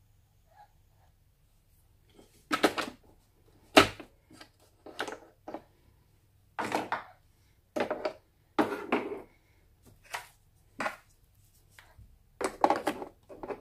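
A run of separate plastic clicks and knocks, with some glass clatter, from a Nescafé Dolce Gusto capsule coffee machine being handled and set up. The sharpest knock comes about four seconds in. The brewing pump is not running.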